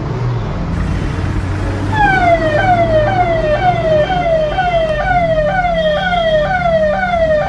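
Electronic siren sounding a rapid yelp: a tone that repeatedly falls in pitch, about two sweeps a second, starting about two seconds in and cutting off suddenly at the end.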